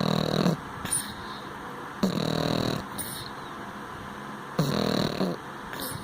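Sleeping pug snoring: three rattling snores, one about every two and a half seconds, each followed by a short, higher hiss of breath. Loud snoring like this is typical of the breed's short, flat-faced airway.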